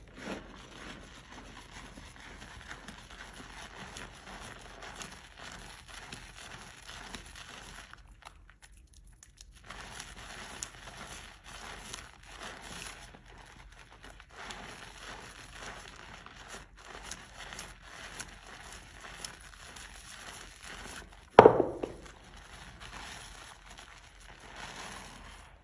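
Soaked, mushy soap being squished and cut: a steady run of soft crackles and crunches that pauses briefly about a third of the way in, with one much louder crunch near the end.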